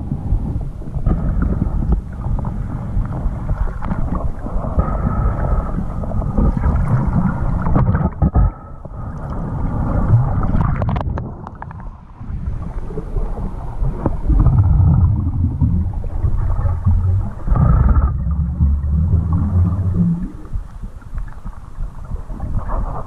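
Muffled underwater rumble and gurgling of water against an action camera's waterproof housing as a snorkeller moves. It comes in uneven surges, dropping away briefly about twelve seconds in.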